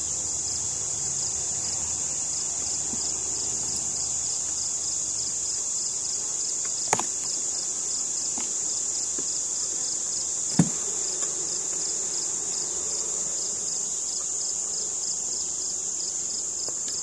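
A steady high-pitched insect trill with a fast regular pulse, over a faint hum of honeybees around the open hive. Two sharp knocks, about 7 and 10.5 seconds in, come from the wooden hive box being handled as it is lifted off.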